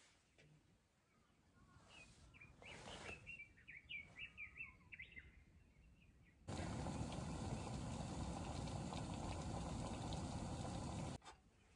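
A small bird singing a quick run of high chirps in quiet open air. About six seconds in, a steady rushing noise starts abruptly and cuts off sharply just before the end.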